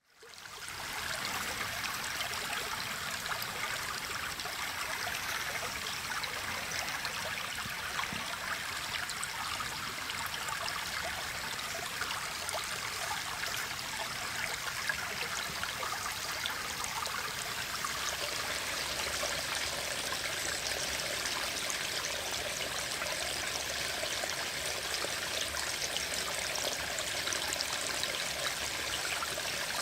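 Small stream trickling and splashing steadily over rocks, fading in over the first second.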